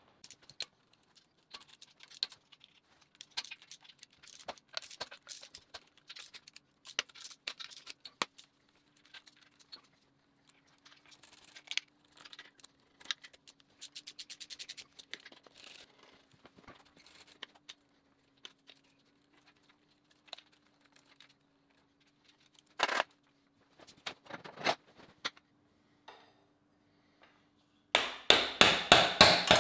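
Ratchet clicking and metal tools clinking as a row of oil pan bolts is undone on a Volvo B5254T five-cylinder engine, with a quick run of ratchet clicks about halfway through and a single sharp knock later on. Near the end a mallet strikes the cast oil pan rapidly and loudly, knocking it loose for removal. A faint steady hum sits underneath.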